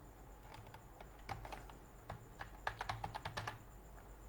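Faint computer keyboard typing: a few keystrokes about a second in, then a quick run of keystrokes near three seconds in.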